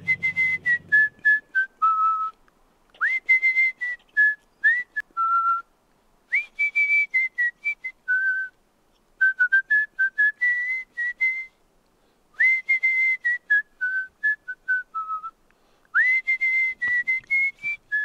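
A person whistling a tune: six short phrases, each sliding up to a held high note and then stepping down, with brief pauses between them.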